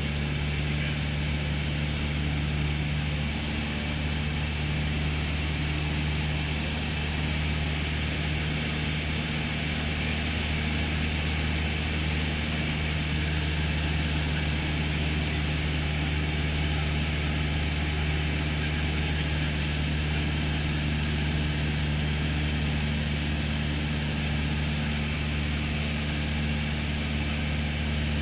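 Single-engine light aircraft's piston engine and propeller droning steadily in flight, heard from inside the cabin.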